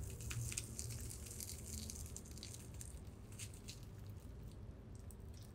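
Crispy fried breadcrumb-and-potato coating of a mozzarella corn dog crackling as it is picked up and broken open: a run of small crunchy crackles that thin out after about three and a half seconds, over a low steady hum.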